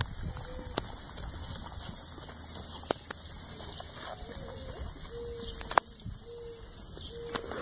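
A dove cooing: a slow series of low notes, the first slurred upward and the last three held evenly, near the end. A few sharp clicks, the loudest near six seconds in, and a low rumble run under it.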